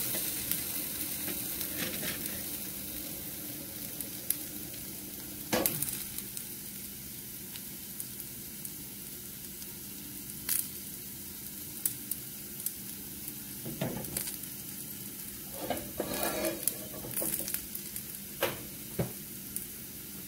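Diced potatoes sizzling steadily in oil in a frying pan, with a few sharp knocks and clinks of kitchenware over it.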